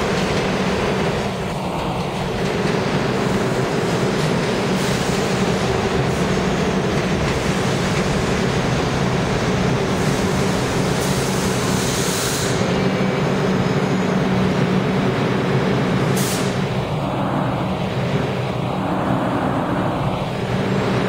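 New York City subway train moving along the station track, with a steady rumble of wheels and motors. A whine rises and falls near the start and again near the end, and there are a few short hisses around the middle.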